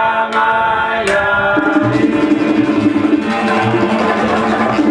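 Live Cuban son band: acoustic guitars, hand drums and a güiro, with a male voice singing long held notes over a steady drum pattern.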